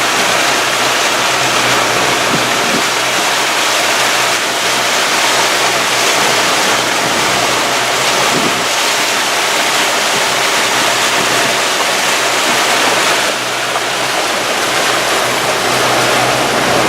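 Motorboat under way: a steady rush of water along the hull and wind over the microphone, with a faint low engine hum underneath.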